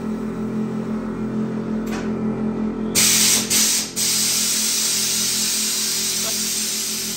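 Air ride suspension on a Chevrolet C10 pickup dumping air: a loud hiss of air venting from the bags starts suddenly about three seconds in, breaks off briefly twice, then runs on and tapers off near the end as the truck drops. A steady low hum runs underneath.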